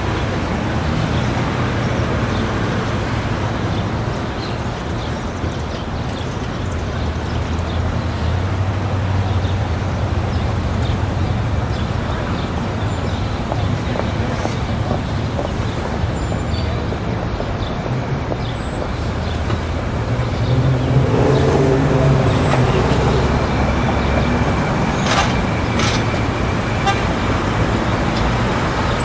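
City street traffic: a steady wash of passing cars and engine rumble, with a car horn tooting. A louder vehicle passes about two-thirds of the way through.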